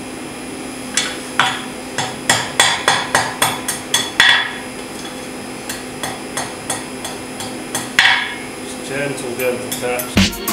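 Blacksmith's hand hammer striking a hot steel bar on the anvil horn to curl a scroll, with metallic blows on the steel. A quick run of about three blows a second comes first, then lighter, more spaced taps, with one heavy blow near the end.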